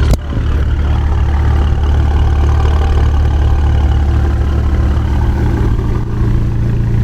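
Car exhaust idling with a steady, loud low drone, with a brief knock right at the start; about six seconds in the low note shifts in tone.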